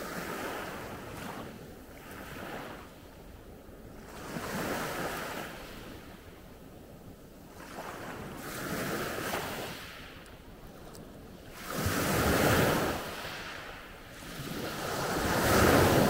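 Small sea waves breaking and washing up a pebble beach, about six swells of surf that rise and fade every few seconds, the last two the loudest.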